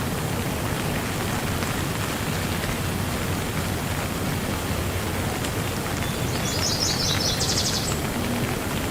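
Steady rain falling. Near the end, a bird gives a brief, rapid, high-pitched trill.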